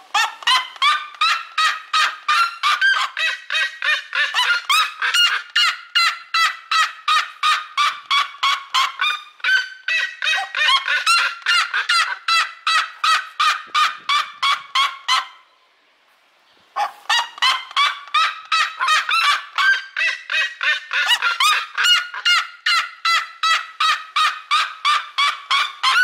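Red-legged seriema calling: a long run of loud yelping notes, about two to three a second. The calls break off for a second or so just past the middle, then start again.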